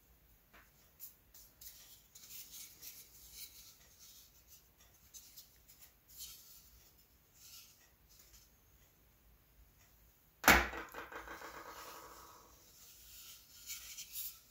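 Knife blade shaving balsa wood in short, faint slicing strokes. About ten and a half seconds in, the folding knife is set down on the countertop with a sharp clack and a metallic ring that fades over about two seconds.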